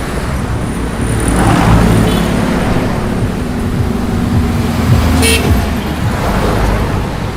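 Steady roadside city traffic with vehicles passing close by; one swells past about a second and a half in, its engine humming on for a few seconds. A short vehicle horn toot sounds about five seconds in.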